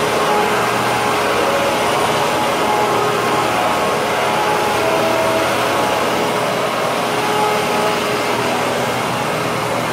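Hoover WindTunnel twin-chamber upright vacuum cleaner running steadily on carpet: an even rush of air with a faint whine over it.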